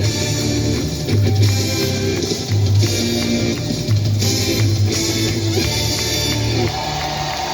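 Worship band music: bass notes changing about once a second under guitar and drum kit with cymbals, no singing.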